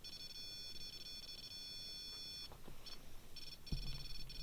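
Ghost-detection device sounding its electronic alarm: a steady, high multi-note tone that drops out briefly a couple of times, with a low rumble joining near the end.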